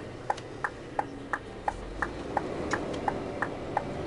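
Turn-signal indicator ticking in a truck cab: an even tick-tock of alternating higher and lower clicks, about three a second, over the low running of the truck's diesel engine.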